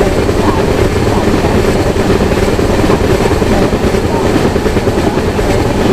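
Train passing close by: a loud, steady rumble of locomotive and wheels.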